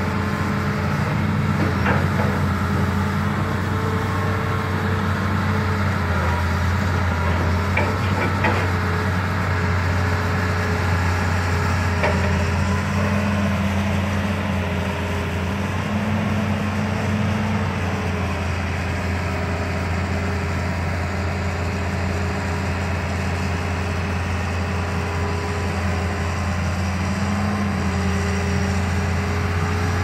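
Amphibious pontoon excavator's diesel engine running steadily under hydraulic load, its tone stepping up and down as the long-reach boom and bucket are worked. A few sharp knocks come in the first half.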